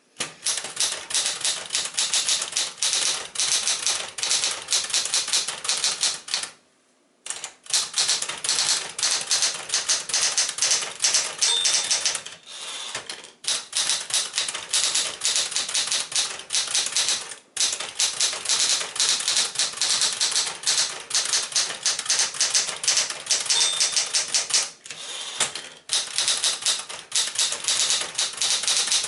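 A 1972 Smith-Corona Galaxie Twelve manual typewriter being typed on fast: quick runs of crisp typebar strikes with short pauses between them, and a brief high ring twice.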